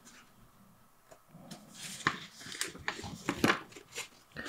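Paper and thin card rustling and scraping as a folded poster is slid out of a cardboard sleeve: a run of crinkles and scrapes starting about two seconds in, the loudest just before the end.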